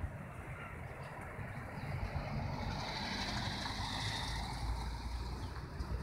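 A car passing on the road: engine rumble and tyre hiss that swell about two seconds in and fade near the end.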